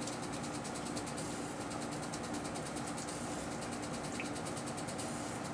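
Steady hum of workshop machinery: a motor running with a couple of steady low tones under an even hiss.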